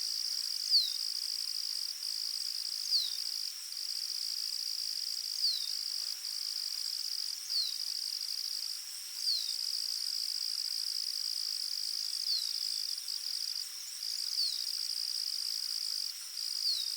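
Insects trilling: a steady high-pitched buzz with brief breaks. A short falling note repeats about every two seconds over it.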